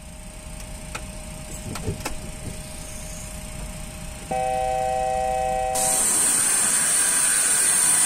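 Sounds of a Boeing 737-800 on the ground: a steady low rumble with a few light clicks, then about four seconds in a loud steady multi-pitched tone for about a second and a half, then a loud steady hiss.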